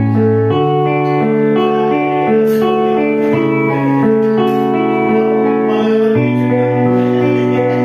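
Instrumental music playing, a backing track of held chords over a bass line that changes note every second or two, with no singing yet.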